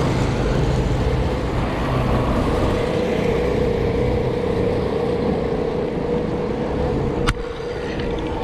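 Motorcycle engine running as it passes close by and pulls ahead, over a steady rumble of road and wind noise. A single sharp click comes about seven seconds in.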